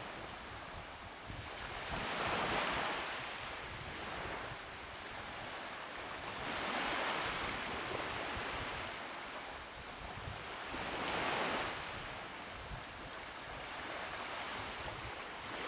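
Small waves breaking and washing up onto a sandy beach, the surf swelling and fading about every four seconds, with some wind buffeting the microphone.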